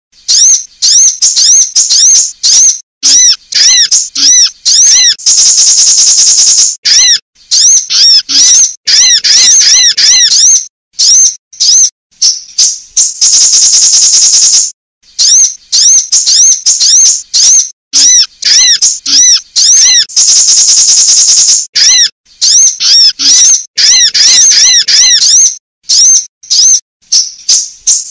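Recorded female sunbird calls played loud as a lure: rapid high-pitched chirps and arched notes. A dense high trill breaks in about every seven to eight seconds.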